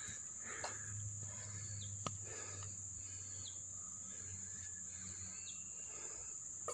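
Faint steady high-pitched drone of insects, with a few short faint chirps and a single click about two seconds in.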